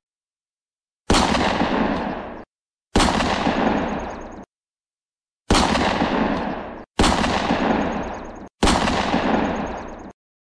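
Five bursts of dubbed-in gunfire sound effect, about a second and a half apart. Each starts sharply, fades for a second or so, then cuts off abruptly into dead silence.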